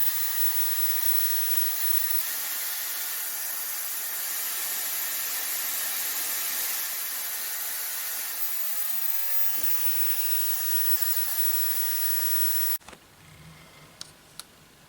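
YAPOY high-speed ionic hair dryer running at a constant setting, a steady airy rush with a faint whine, then cutting off abruptly about thirteen seconds in. A couple of light clicks follow.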